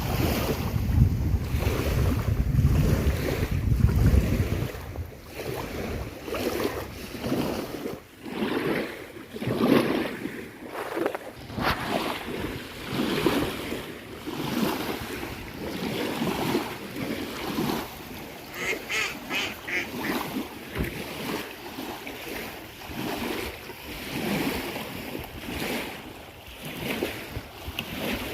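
Waves washing onto the shore with wind buffeting the microphone, strongest in the first few seconds. About two-thirds of the way through, a bird gives a short run of rapid calls over the surf.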